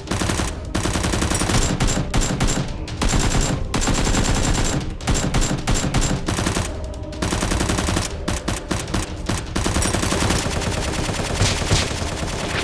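Rapid automatic gunfire in long bursts with brief breaks between them, the dubbed gun sound of a staged Nerf blaster shootout.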